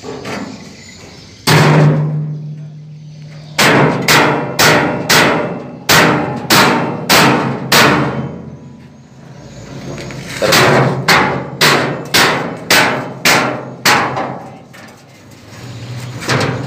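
Hammer blows on the steel plate of a dump-truck body, each ringing. There is one strike that rings on for about two seconds, then two runs of strikes at about two a second. The plate is being beaten down so the wall plate sits flat against the frame.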